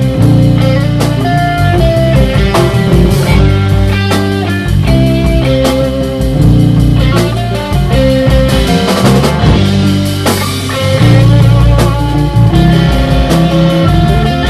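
Instrumental rock band playing a rehearsal take: guitar notes held over a heavy bass line, with drum kit hits keeping the beat.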